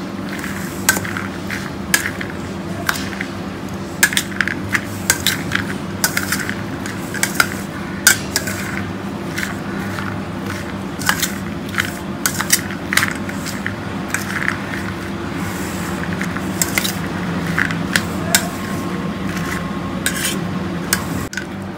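Metal spoon clinking and scraping against a stainless steel bowl as chopped vegetables and sprouts are stirred, in irregular clinks throughout, over a steady low hum.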